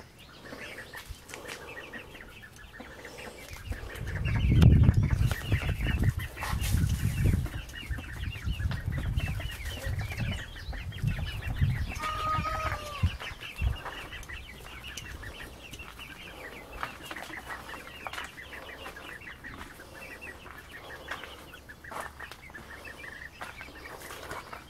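Young chickens peeping and chirping over and over as a small flock of chicks and ducks walks along. A low rumble runs from about four to thirteen seconds in and is the loudest sound.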